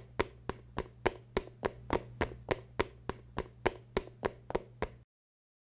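A rapid, evenly spaced series of sharp taps, about three or four a second, over a low steady hum; it stops suddenly about five seconds in.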